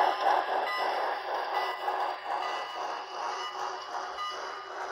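HO-scale model passenger train running on the track, with a rhythmic chuffing from the Broadway Limited 2-6-6-4 steam locomotive's onboard sound system mixed with the cars rolling over the rails. It grows gradually fainter as the train moves away.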